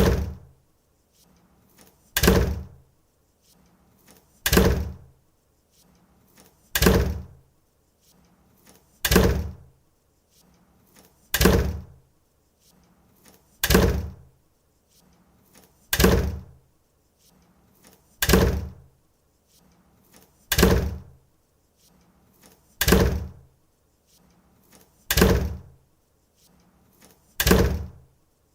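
A door being shut hard, over and over, about once every two and a quarter seconds. Each shut is a single sharp hit, with a faint sound a moment before it.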